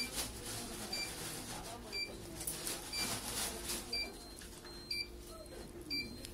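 Therapeutic laser unit giving a short, high electronic beep about once a second while its red beam is on the skin.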